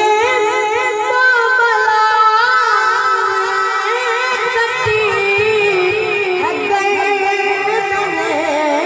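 A boy's high voice singing an Urdu naat unaccompanied into a microphone. He holds long notes that waver and curl with ornaments.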